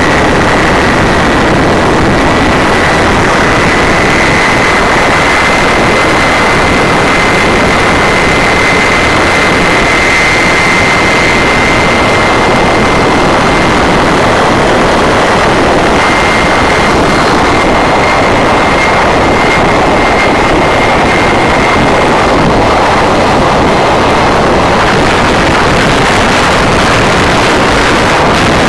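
Supercharged 572-cubic-inch Sainty quad-cam V8 in a ski boat, running hard at speed through open headers, very loud and unbroken. A steady high whine runs through it, rising slightly in pitch in the first few seconds.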